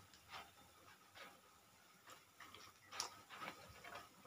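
Near silence, broken by a few faint, scattered clicks, the most distinct about three seconds in.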